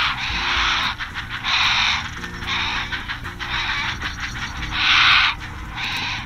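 Great blue heron chicks giving harsh, rasping begging calls in about six bursts of half a second to a second each, over background music with low held notes.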